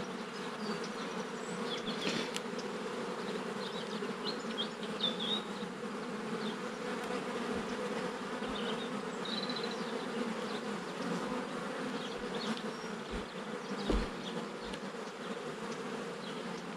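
Honeybee colony buzzing steadily around an open hive whose frames are out for inspection. A dull knock comes about two seconds in and a louder one near the end.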